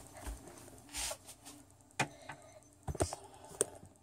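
Handling sounds: a soft rustle about a second in, then a few light clicks and knocks as a small plastic Littlest Pet Shop figure is handled and set back down on a wooden table.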